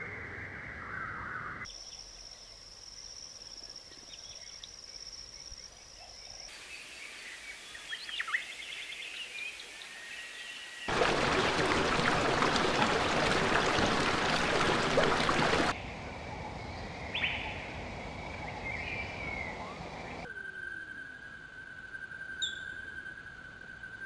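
Short outdoor recordings spliced together, changing abruptly every few seconds: scattered bird calls and chirps over background noise. A steady high tone runs early on, and a loud, even rushing noise fills about five seconds in the middle.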